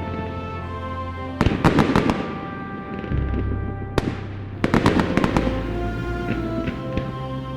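Fireworks bursting and crackling in two quick clusters, about a second and a half in and again near five seconds, over background music with held chords.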